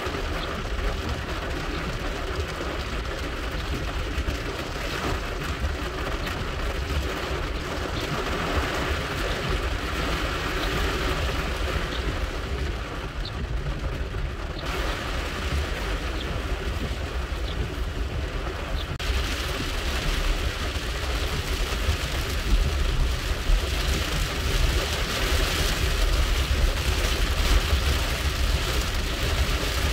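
Rain drumming on a car's roof and windshield, heard from inside the moving car over a low rumble of engine and road noise. The rain gets louder over the last several seconds.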